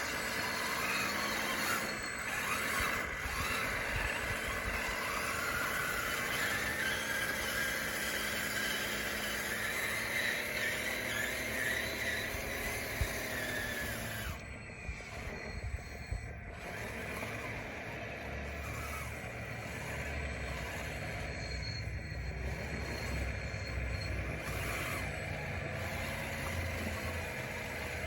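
Electric drive motors and gearboxes of a radio-controlled DXR2 bulldozer whining as it drives, the pitch rising and falling again and again with the throttle. There is a single sharp click about halfway through.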